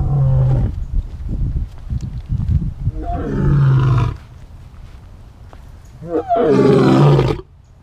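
A lion roaring: three deep calls about three seconds apart, the last the longest and loudest, with a low rumble between the first two.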